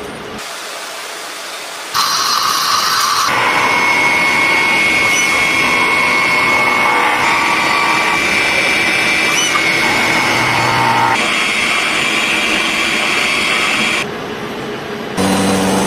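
CNC machine tool cutting metal: a loud, steady machining noise with a thin high whine, jumping louder about two seconds in and changing abruptly a few times.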